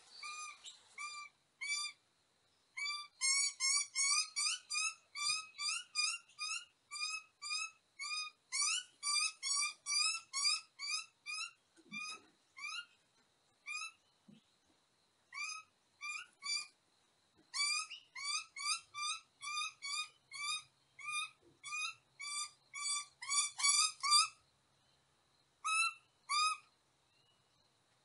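A bird calling: a long series of short rising notes, about three to five a second, in bouts with short pauses.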